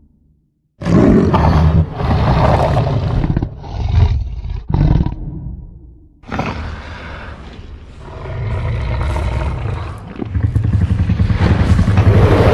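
A string of deep animal-like growls and roars, one after another with short breaks between them, the last swelling louder near the end.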